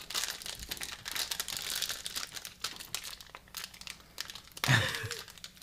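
Plastic snack-pastry wrapper crinkling as it is worked at with the fingers and then bitten at to tear it open without scissors. A short louder vocal sound comes near the end.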